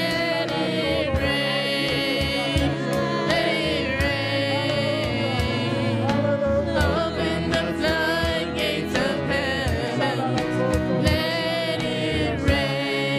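Live gospel worship music: voices singing a slow song over instrumental accompaniment with steady beats.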